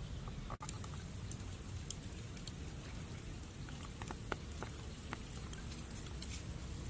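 Open wood-and-charcoal fire crackling under whole fish grilling on the embers: scattered sharp pops and ticks over a steady low hiss.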